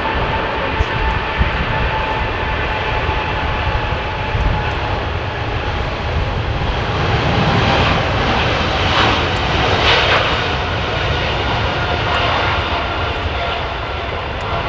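Boeing 777-200F freighter's twin GE90 turbofans at takeoff power during the takeoff roll: a steady, loud jet engine noise that swells about halfway through. A high thin whine is heard at the start and fades within the first few seconds.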